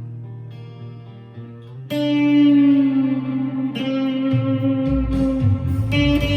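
Harley Benton SC-400 electric guitar being played: soft sustained notes, then about two seconds in a much louder note rings out with a full, bright tone, followed by further sustained notes and low notes.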